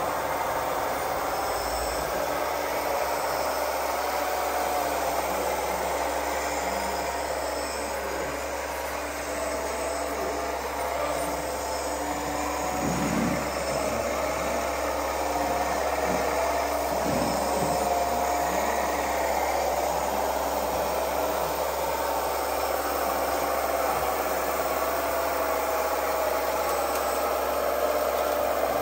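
Small electric motors of radio-controlled construction machines whining steadily, the pitch wavering slightly up and down.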